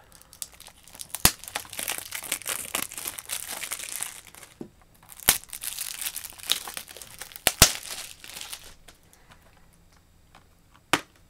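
Thin plastic wrap crinkling and tearing as it is peeled off a Blu-ray case, with a few sharp clicks from the hard plastic case. The crinkling is heaviest in the first half and has died away by near the end, where one last sharp click comes.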